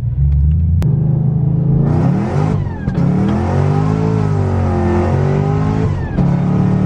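2014 Shelby GT500's supercharged V8 accelerating hard at full throttle, climbing in pitch and broken by two quick gear shifts, about three seconds in and again near six seconds. The shifts are no-lift shifts made through a freshly installed WOT Box.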